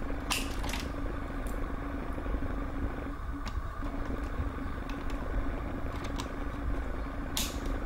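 Scattered clicks and small rattles of a multi-wire cable loom being handled and its plug fitted to a connector on an LCD television's power supply board, over a steady low hum.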